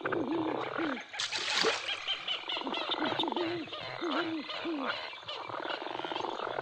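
Frogs croaking over and over, each call rising and falling in pitch, about two a second, with higher chirps repeating above them. A short rush of noise comes about a second in.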